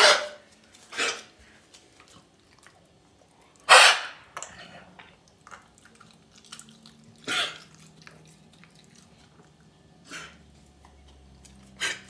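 Pit bull with kennel cough giving six short, explosive bursts of sneezing and coughing, one to three seconds apart, the loudest about four seconds in.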